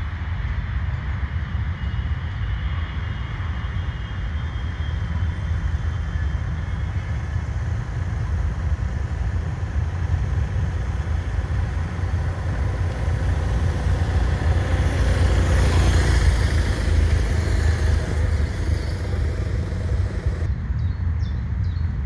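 Steady low rumble of motorcycle road noise, swelling louder about fifteen to seventeen seconds in.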